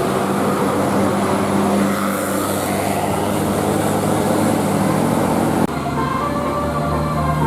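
A bus's engine running loudly with a steady low hum, with a high hiss over the middle. After an abrupt cut near the end, the held tones of a musical telolet horn begin.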